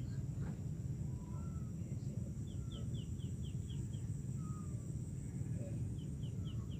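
Birds calling: a quick run of about seven short, falling notes, roughly four a second, midway through, and the run starting again near the end, with a few fainter scattered bird notes between. Under it a steady low rumble and a steady high hiss of open-air ambience.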